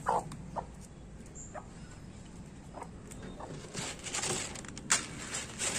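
Desi hens pecking at scattered leaves on bare concrete, with a few short soft clucks spread through. A brief scuffle comes about four seconds in, followed by a sharp tap.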